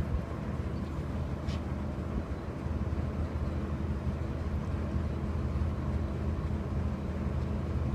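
Steady low machine-like hum, even throughout, with a noisy rumble beneath it.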